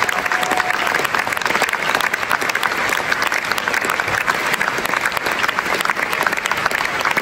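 Theatre audience applauding steadily, many hands clapping densely at once.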